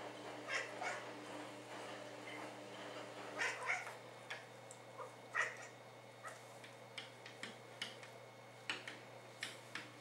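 A European shorthair tabby cat gives short chirping calls at birds outside the window, in a few quick bursts over the first half. These are followed by a run of quieter quick clicks.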